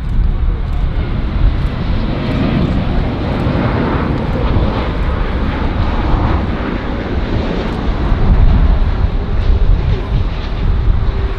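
Airbus A350-900 airliner's Rolls-Royce Trent XWB jet engines at close range as it lands: a loud, continuous jet rush with a heavy low rumble, swelling a little about two seconds in and again about eight seconds in.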